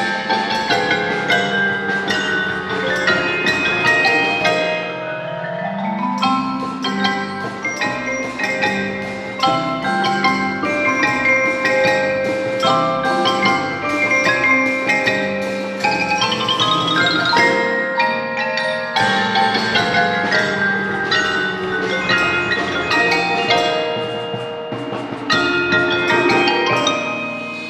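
Percussion ensemble playing, with many quick pitched notes on mallet instruments and sharp clicks among them, and a low note sliding upward about five seconds in.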